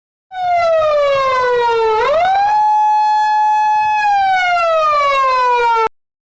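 Police car siren wailing: the tone glides down, rises quickly and holds steady for a moment and a half, then glides down again before cutting off abruptly near the end.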